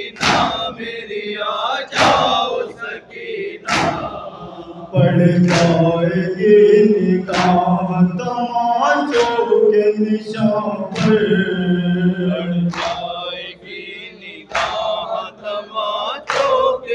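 Shia mourners performing matam, striking their chests together in a slow steady beat about every two seconds, while a chorus of men's voices chants the noha, a lament, loudest in the middle.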